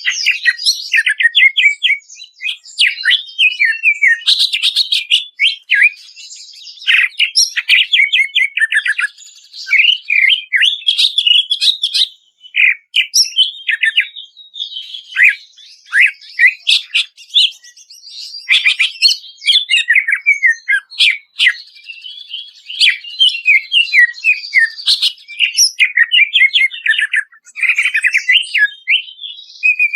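Cucak ijo (green leafbird) singing a long, varied song of rapid trills and slurred whistled notes, high-pitched and almost without pause, broken only by a few brief gaps.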